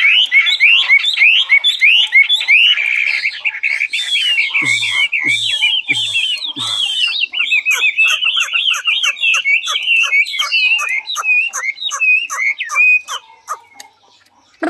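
Chinese hwamei singing: a long, unbroken run of rapid, varied whistled phrases that stops about a second before the end.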